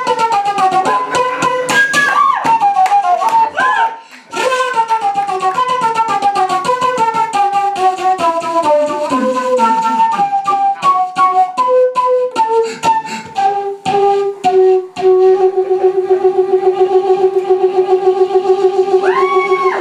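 Flute solo over strummed acoustic guitar: quick descending runs of notes, a brief break about four seconds in, then one long held low note with a rapid pulsing beat.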